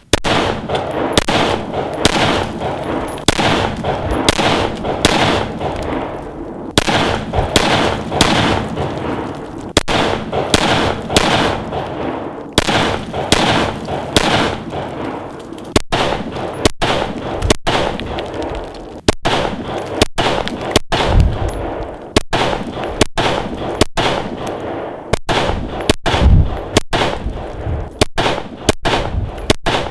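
Rifle shots fired one at a time at close range, many reports in a row spliced together with sudden cuts between them.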